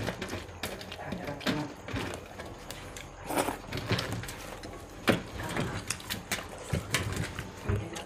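People eating rice and fish curry fast by hand: irregular wet smacking, chewing and clicking sounds.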